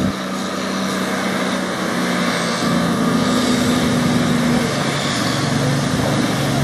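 A 1990 Champion 740A motor grader's Cummins L10 six-cylinder diesel engine running steadily as the grader drives along.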